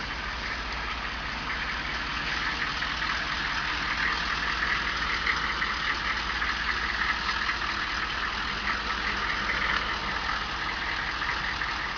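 The 6.5-litre turbo-diesel V8 of a 1999 Chevrolet C2500 running steadily.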